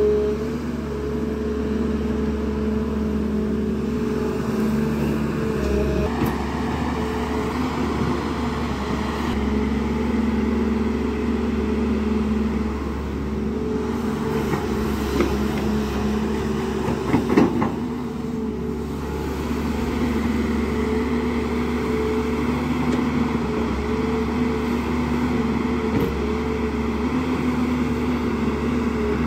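JCB 205 NXT tracked excavator's diesel engine running steadily under load as it digs, its pitch wavering slightly. There is a brief cluster of knocks about seventeen seconds in.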